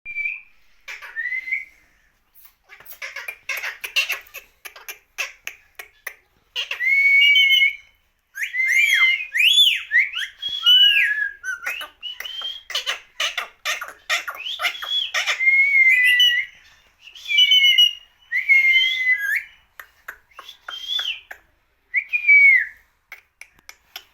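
A pet parrot whistling and chattering: many short whistles that glide up and down in pitch, mixed with rapid clicking, in bursts with short pauses between them.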